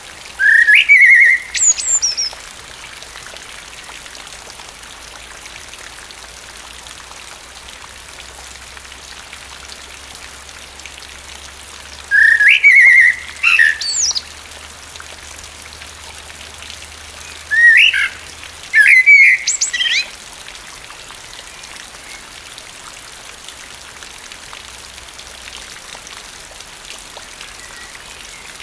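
Common blackbird singing three short song phrases over a steady hiss of rain: about a second in, around twelve seconds in, and around eighteen seconds in. Each phrase ends in higher, thinner twittering notes.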